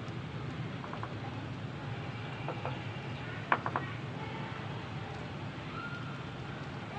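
Wood fire burning in a clay chulha: a steady low rumble with a few sharp crackles, the loudest about three and a half seconds in.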